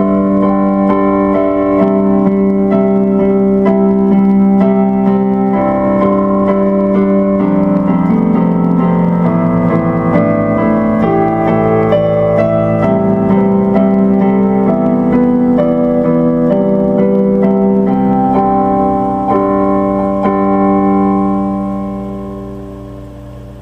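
Outro music played on an electric piano, with a steady sequence of notes over a held low note, fading out near the end.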